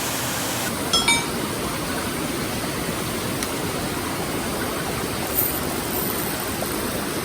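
Steady rush of a small mountain stream's flowing water, with a couple of short clicks about a second in.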